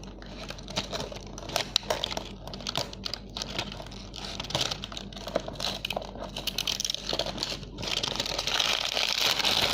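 Snack packaging being handled and opened: a run of small clicks, taps and crinkles, turning into a steadier, louder rustle for the last couple of seconds.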